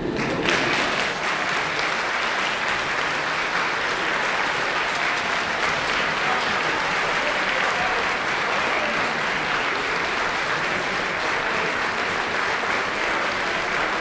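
Audience applauding, breaking out suddenly and then holding steady.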